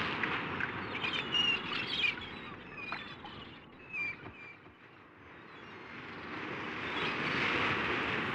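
Ocean waves washing on a shore, with short bird chirps over them in the first few seconds; the surf swells again near the end.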